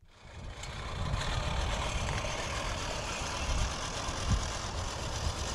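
Lawn mower engine running steadily, a continuous engine noise with a heavy low rumble that fades in over the first second.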